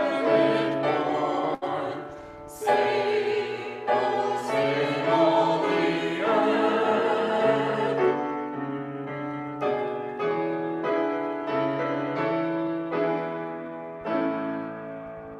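Church choir singing in full chorus, the sound softening in the second half and fading away near the end.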